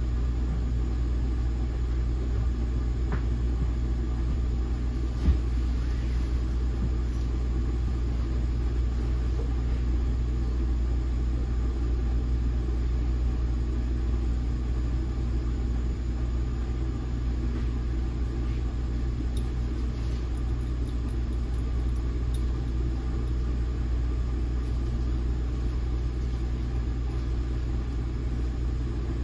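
Steady low hum inside an NJ Transit Multilevel rail coach standing still, with one sharp knock about five seconds in.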